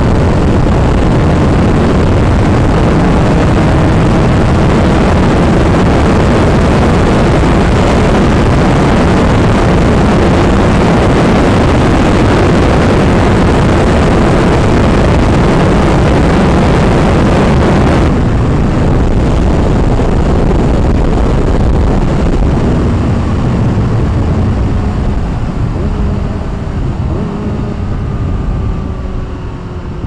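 Yamaha R6's inline-four engine running at freeway speed under loud wind rush on the rider's camera microphone. About two thirds of the way through, the hiss drops suddenly. Near the end the overall noise eases and the engine's falling note comes through as the bike slows.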